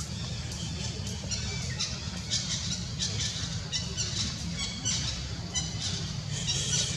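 Animal calls: many short, high-pitched squeaks and squawks in quick irregular succession, over a steady low rumble.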